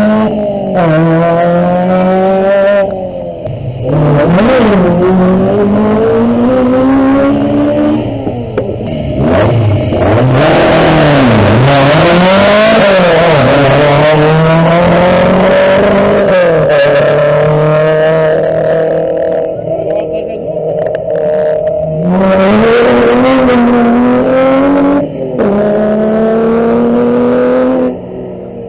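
Rally car engine at full throttle, revs climbing through the gears and dropping at each shift or lift. It is loudest and noisiest about ten to sixteen seconds in, where the pitch dips and rises several times as it passes close.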